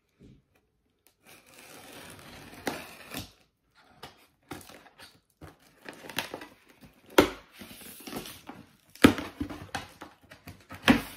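A cardboard shipping box being opened and handled: cardboard and paper rustling and crinkling, with several sharp knocks.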